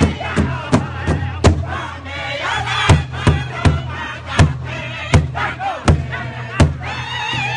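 Powwow drum group singing an intertribal song together while several men strike a large hide-headed powwow drum in unison. The beat runs at about three strikes a second, drops out for about a second and a half, then returns as strong, more widely spaced beats under the singing.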